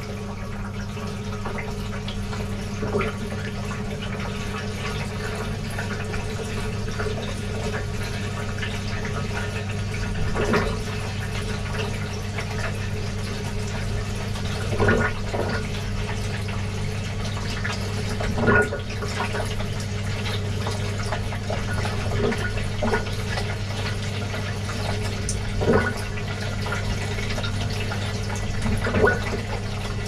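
Gorenje WA 65205 washing machine drum turning through a wash, heard from inside the drum: water and suds sloshing over the perforated steel under a steady low hum, with a louder splash about every three to four seconds as the wet load tumbles.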